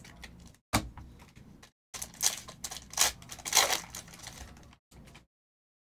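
Trading cards and a foil card pack being handled: a sharp click just under a second in, then a run of crinkling and clicking lasting about three seconds.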